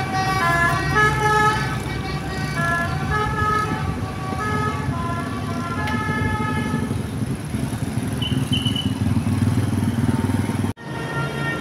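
Basuri V3 telolet bus horn playing a quick tune of short notes at changing pitches, over the low rumble of the bus engine. After about seven seconds the tune stops and the engine rumble carries on, then the sound cuts off abruptly near the end.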